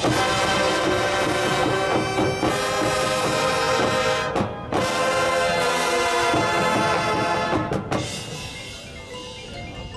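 High school marching band playing loud sustained brass chords with percussion. There is a short break about four and a half seconds in, and the brass cuts off near eight seconds, leaving quieter scattered notes.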